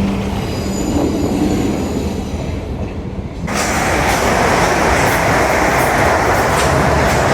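A train at a station, at first a low rumble with faint steady tones. About halfway through, a loud rush of a train passing close begins suddenly and continues, with repeated clicks of wheels over rail joints.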